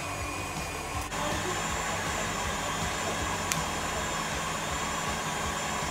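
KitchenAid Classic stand mixer running steadily, whisking egg whites for meringue. It steps up to high speed with a click about a second in, then holds an even motor whir.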